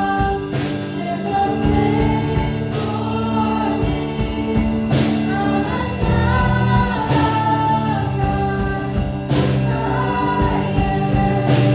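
Live worship band playing a contemporary worship song: women's voices sing the melody over acoustic guitar, keyboard and drum kit. Sharp cymbal hits land about every two seconds.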